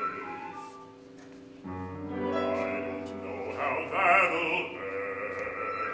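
Opera with orchestra: the orchestra holds sustained chords, with a low bass note coming in about a second and a half in, and a singer's voice with a wide vibrato rises over it, loudest about four seconds in.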